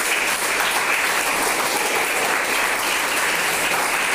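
A class of students applauding, many hands clapping at a steady level.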